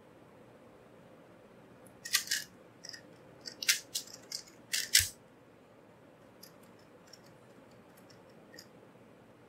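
A 2x2 speedcube being turned rapidly through a timed solve of about three seconds: a quick run of sharp plastic clicks and clacks, ending about five seconds in with a click and a low thump. A few faint ticks follow as the cube is handled afterwards.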